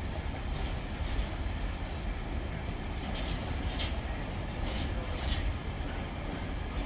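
Freight train of hopper wagons rolling past: a steady low rumble of wheels on the rails, with a few brief higher rasps about three and five seconds in.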